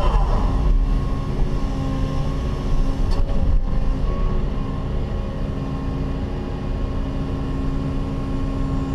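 Cat 316E hydraulic excavator's diesel engine and hydraulic pump running steadily while the machine digs, heard from inside the closed cab: a low rumble with a steady whine over it and a few faint knocks.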